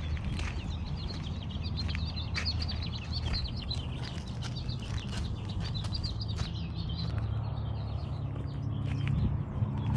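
Songbird chirping in a fast, dense run of high notes that thins out and stops about seven or eight seconds in, over a steady low hum.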